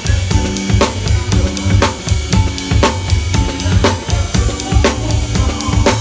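Drum kit playing a funk groove: a steady rhythm of frequent hi-hat strokes and kick drum, with a hard snare accent about once a second. The band's bass and other pitched instruments play underneath.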